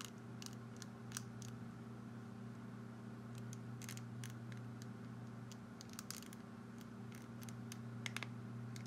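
3D-printed cable-driven robot wrist turned by hand, giving scattered small clicks and crunchy ticks, with a few sharper ones near the end. The maker puts the crunchiness down to slightly misaligned pulleys that make the stainless steel cable run on the side of the pulley. A steady low hum runs underneath.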